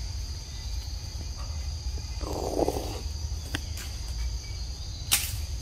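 Steady insect chorus, a continuous shrill drone in two high bands, with a low rumble underneath. A brief rustling noise comes about two seconds in, and a single sharp click near the end.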